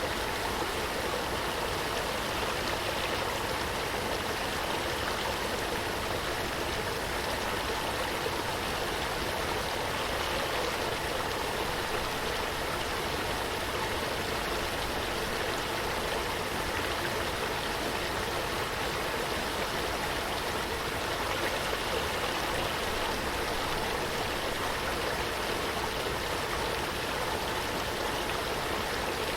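Running water flowing steadily, an even, unbroken rush with no separate splashes or drops standing out.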